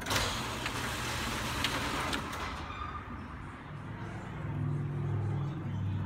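Commercial overhead bay door opener started from its push-button station, the door beginning to open. It starts suddenly with a loud, noisy run and a few clacks, which after about two and a half seconds settle into a steadier low hum.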